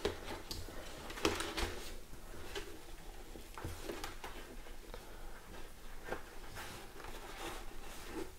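Hands working inside a motorcycle helmet: rustling of the fabric liner and padding, with a few scattered soft clicks and knocks of plastic as the intercom speaker wire is pushed and locked into place.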